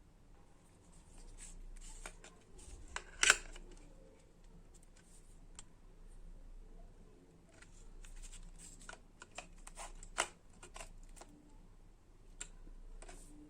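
Scattered light clicks and rustles of small objects being handled by hand, with one sharper snap about three seconds in and another near ten seconds.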